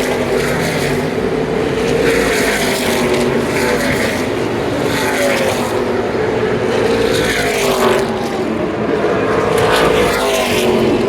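NASCAR race trucks' V8 engines at racing speed, several trucks going by in turn, each engine note sliding down in pitch as it passes.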